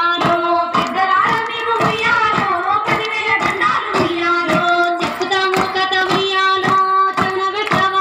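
Women's voices singing a Bathukamma folk song, with a steady rhythm of hand claps from the dancers in the circle.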